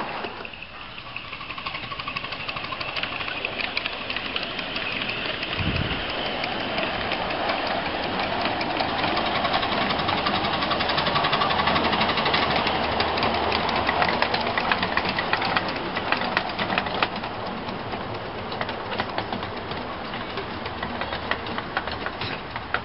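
Miniature 7¼-inch gauge steam locomotive hauling a passenger train past at close range: hissing steam and the rapid clicking of small wheels over the rail joints, growing louder toward the middle as it passes and fading as it draws away.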